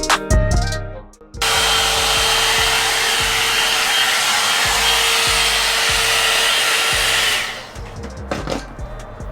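Background music with a drum beat, then a hot-air dryer brush switched on and blowing steadily with a thin motor whine for about six seconds before it cuts out near the end.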